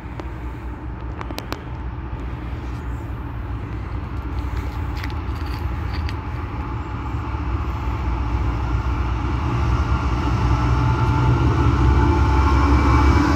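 Diesel freight locomotives approaching: a steady low engine rumble that grows steadily louder as the train nears, with a few faint clicks in the first few seconds.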